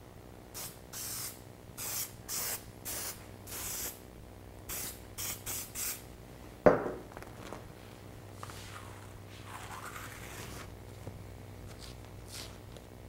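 Aerosol spray adhesive hissing out in about ten short bursts, a light tack coat to hold the clear vinyl pattern down. About halfway through comes a single sharp knock, followed by a softer rustling.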